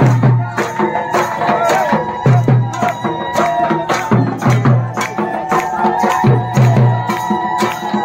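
Live Adivasi folk drumming: several drums beaten in a fast, even rhythm, with runs of deep pitched drum strokes, under a high, held, wavering melody line.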